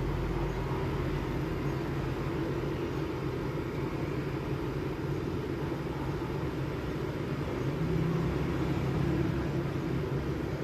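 Air conditioner outdoor unit running, its compressor and fan giving a steady low hum that swells slightly about eight seconds in, while the refrigerant is pumped down into the unit.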